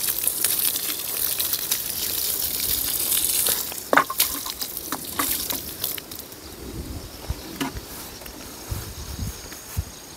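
Water showering from the rose of a plastic watering can onto loose soil, a steady hiss that thins out about four seconds in, with a few light knocks and clicks. A faint, steady insect trill is audible near the end.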